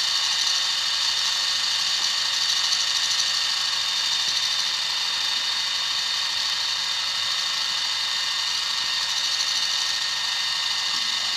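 Electric motors of a 4-channel RC toy helicopter spinning its main and tail rotors: a steady, high-pitched whir that holds the same pitch and level throughout.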